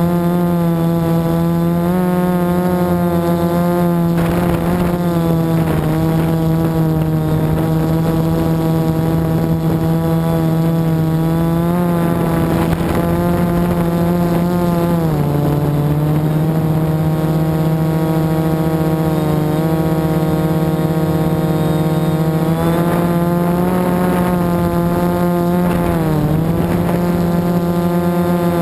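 FPV drone's motors and propellers running in flight, a steady droning buzz whose pitch dips briefly about halfway through and again near the end as the throttle changes.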